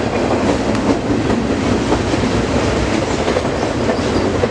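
Double-stack container freight train rolling past close by: a steady, loud noise of wheels on rail, with scattered sharp clicks.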